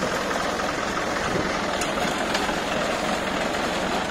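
Tractor diesel engine running steadily at close range while working a reaper-binder through a wheat crop, with a few faint ticks over the even engine noise.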